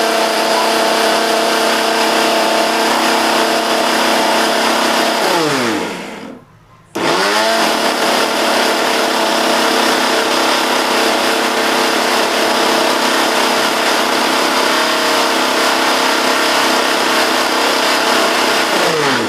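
Kitchen mixer grinder (mixie) grinding dried ginger to powder in its jar, in two pulses: the motor runs with a steady whine, winds down with a falling pitch about five seconds in and stops briefly, then spins up again about a second later and runs until it winds down near the end. The stop-start running is the pulsed grinding used so the dry ginger is not ground in one long run, with the powder already nearly fine.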